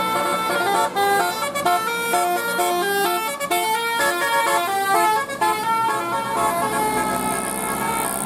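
Bus telolet horn: a bank of electrically switched air horns playing a quick tune of short notes that step up and down, ending on longer held notes.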